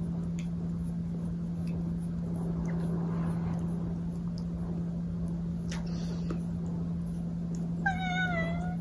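A long-haired tabby cat gives one short meow near the end, its pitch wavering and dipping slightly, over a steady low hum.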